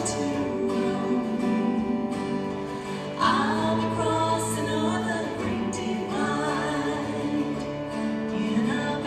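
Live gospel song: a vocal trio singing in harmony over string bass, piano and acoustic guitar. The music gets louder about three seconds in.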